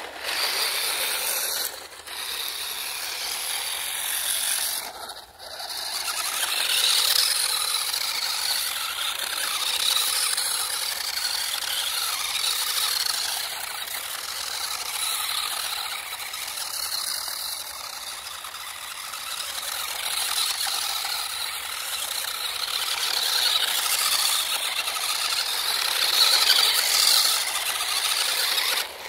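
Electric RC drift car running: a high-pitched motor and gear whine with mechanical rattle, its loudness rising and falling, dropping out briefly about two and five seconds in.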